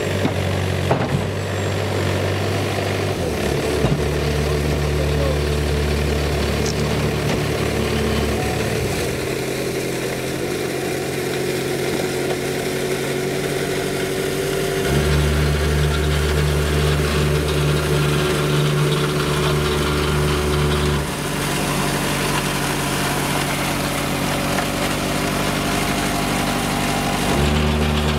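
Engine of a small salt-spreading utility truck running at low speed, its hum growing louder in stretches as the truck works up the street and draws near.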